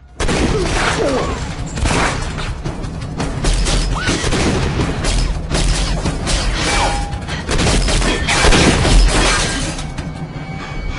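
Loud action-scene soundtrack that starts abruptly: dramatic music mixed with repeated crashes, thuds and shattering impacts.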